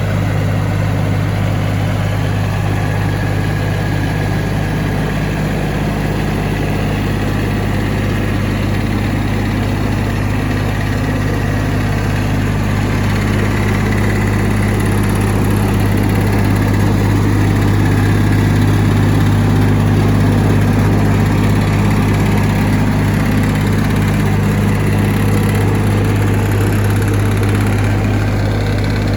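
Diesel engine of a Jensen A540 turntable wood chipper running steadily, with a strong low hum that swells slightly about halfway through.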